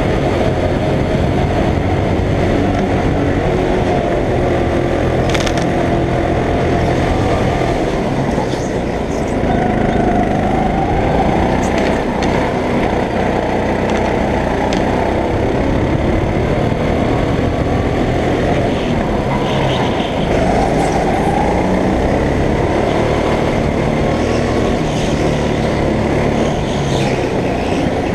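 Go-kart engine running hard, heard from on board the kart, its pitch rising and falling as the driver lifts and accelerates through the corners. A few sharp clicks or knocks come through over the engine.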